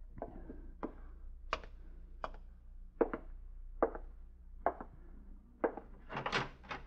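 Radio-drama sound effect of slow, evenly paced footsteps on a hard floor, about one step every 0.8 seconds, then a quick run of several raps near the end.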